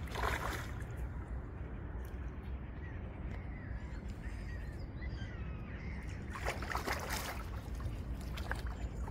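Hooked small carp thrashing at the water's surface during the fight: a splash just after the start and another about six and a half seconds in, over a steady low rumble, with a few faint bird chirps between.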